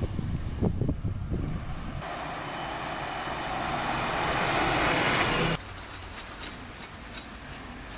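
Street traffic with a city bus passing close by: its noise builds over a few seconds to the loudest point, then cuts off suddenly a little past the middle, leaving quieter street sound.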